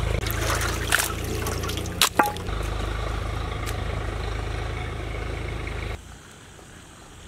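Raw chicken pieces being washed by hand in water in a large steel basin: water sloshing and trickling, with a few sharp clicks about one and two seconds in, over a steady low rumble. The sound drops away sharply about six seconds in.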